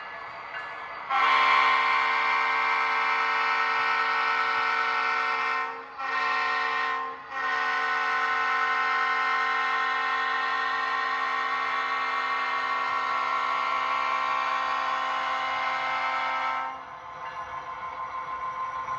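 Model train locomotive's sound system blowing a chorded train horn in three blasts: a long one, a short one, then a very long one that stops about three-quarters of the way through.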